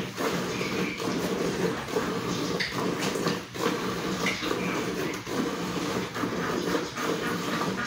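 Milk squirting by hand from a cow's teat into a pail that is already partly full, a steady run of swishing streams.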